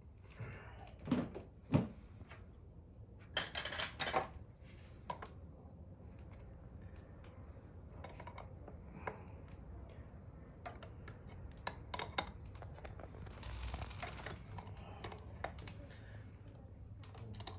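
Motorcycle chain riveting tool being worked on the master link of a gold 520 drive chain: irregular metallic clicks and clinks as a wrench turns the tool's press screw to crimp the link's pins one at a time.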